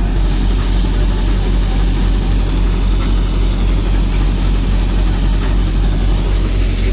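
Multicrop thresher running steadily: a constant low engine hum with a dense mechanical rumble over it.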